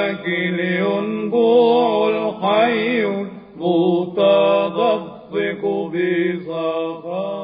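Byzantine Orthodox chant sung in Arabic by a male cantor: an ornamented, melismatic melody over a steady held drone, in several phrases with short pauses for breath.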